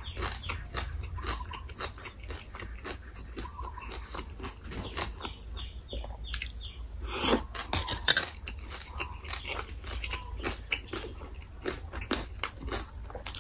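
Close-up mouth sounds of a person chewing and crunching spicy Thai papaya salad (som tam) with boiled bamboo shoots: steady wet smacking and crisp crunches, with a few louder crunches and clicks about seven to eight seconds in.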